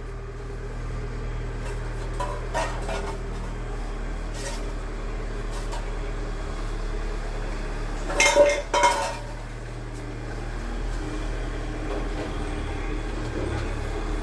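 A dog's metal food bowl clinking and clattering on the floor as the dog works at the empty bowl. There are a few light clinks early and a louder double clatter about eight seconds in, over a steady low hum.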